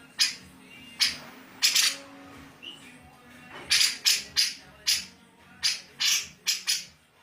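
Cucak jenggot, a bulbul, giving about a dozen short, harsh calls in irregular runs, coming faster in the second half.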